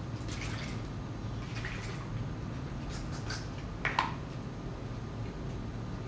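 A person drinking bottled strawberry milk close to the microphone: a few short wet sips and swallows a second or so apart, the loudest gulp about four seconds in.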